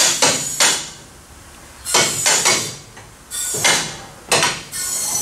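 Automotive lift raising a car, giving four short bursts of metallic clanking and rattling about a second apart.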